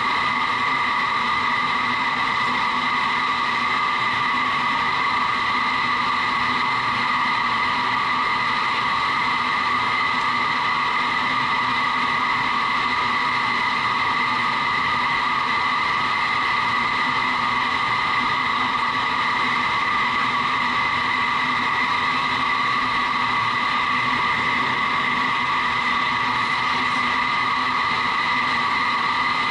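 Vertical wind tunnel running: a steady roar of air blasting up through the flight chamber, with constant fan tones in it at several pitches.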